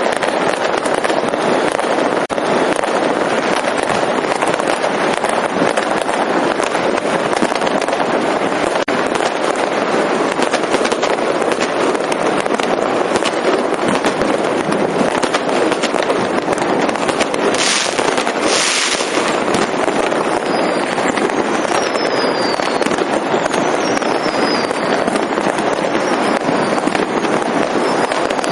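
Dense, continuous crackle and popping of many fireworks and firecrackers going off at once. About eighteen seconds in come two short, louder hissing bursts, followed by several brief falling whistles.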